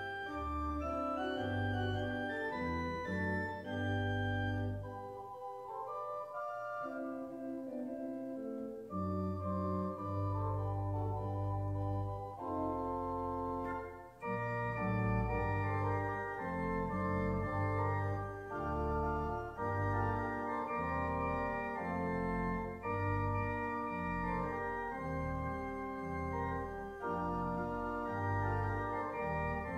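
Organ music: slow sustained chords over a deep bass line, with a short break about halfway through.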